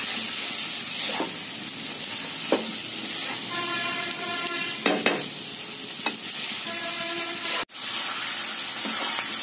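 Sabudana khichdi (soaked tapioca pearls with potato and peanuts) sizzling in a frying pan while a wooden spatula stirs and scrapes through it: a steady frying hiss with a few short scrapes.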